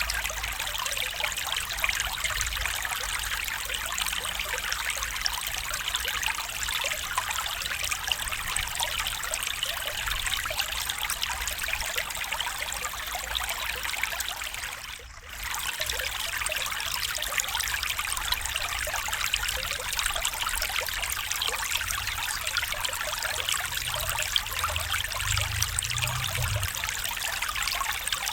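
Stream water trickling steadily, with a momentary dip in level about halfway through.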